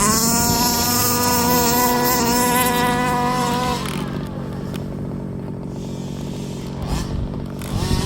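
Two-stroke petrol engine of a 1/5-scale RC buggy revving hard, its pitch rising and falling. It drops back quieter about four seconds in, then revs up loud again near the end.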